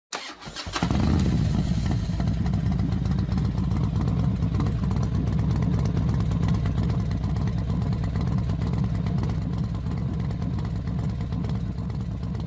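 Motorcycle engine running steadily at high revs, opening with a short crackle and easing off slightly near the end.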